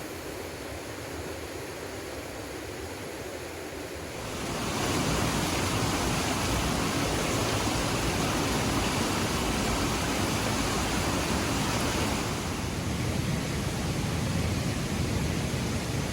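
Steady, even rushing noise with no distinct tones or strikes; it swells louder about four seconds in and eases off slightly near the end.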